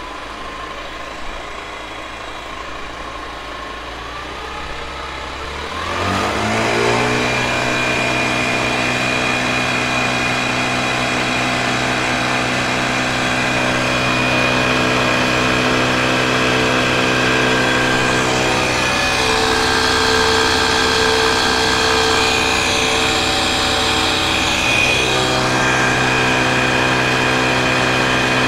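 Homemade 48-volt electric motor on a converted 35 hp Evinrude outboard, running in gear and spinning the propeller on a test stand. A steady hum rises in pitch about five seconds in, then settles into a louder steady whine.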